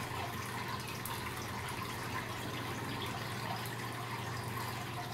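Aquarium water trickling steadily as it circulates, with a low steady hum beneath it.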